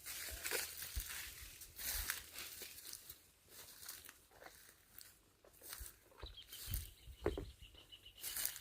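Dry pruned branches and leaves crackling and rustling in irregular bursts as they are handled, with a few sharper knocks. A faint steady high tone starts about six seconds in.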